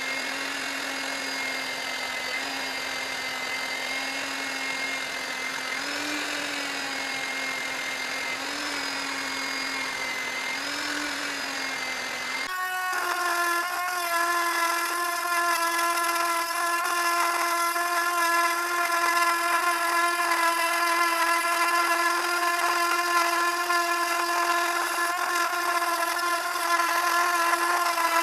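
A corded electric drill clamped to the bench runs steadily with a small abrasive wheel in its chuck, its pitch wavering slightly a few times as work is held against it. About halfway through it gives way abruptly to a handheld rotary tool with a small wire-brush bit running at a higher, whining pitch, louder than the drill, as it polishes the raised emblem on a cast-iron clothes iron.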